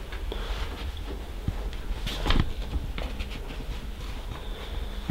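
Handling noise from a handheld camera being panned and carried, a steady low rumble with a few soft knocks and a brief rustle about two seconds in.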